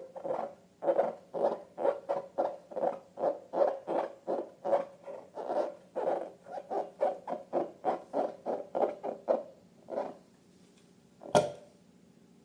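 Rubber balloon squeaking in quick, even rhythm, about four squeaks a second, stopping about ten seconds in; a single sharp snap follows near the end.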